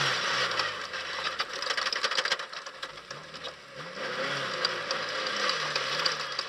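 Engines running in the background, their pitch rising and falling several times, over a steady rattling hiss.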